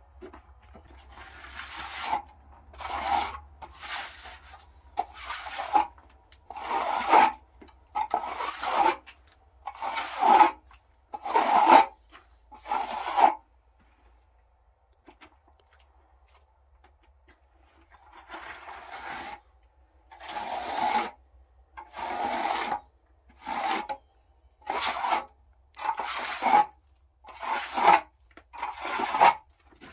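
Plastering trowel scraping wet plaster across a rough wall in repeated strokes, about one a second, with a pause of a few seconds near the middle.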